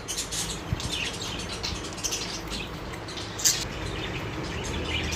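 Pet budgerigars (budgies) chirping and chattering in short, high calls, with one louder chirp about three and a half seconds in.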